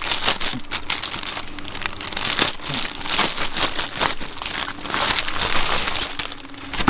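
Packaging crinkling and rustling as it is handled and opened by hand, in irregular crackly bursts.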